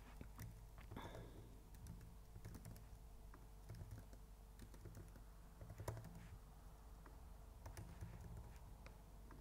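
Faint typing on a computer keyboard: scattered, uneven key clicks with one sharper click about six seconds in, over a low steady hum.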